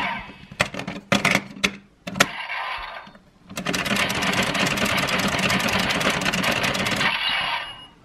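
Bandai DX Geartlinger toy blaster: a handful of sharp plastic clicks as the gear on top is worked, then about three and a half seconds of dense, rapid rattling sound effect that cuts off suddenly.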